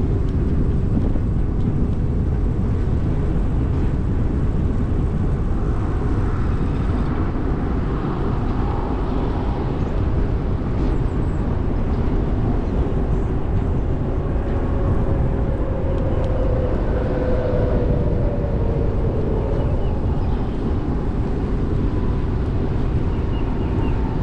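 Wind buffeting the microphone and the rolling noise of an e-bike on a trail, a steady low rumble, with a faint wavering whine coming and going in the middle.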